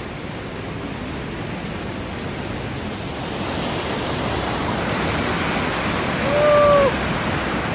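Steady rush of a waterfall, growing gradually louder as it is approached, with a short pitched sound about six seconds in.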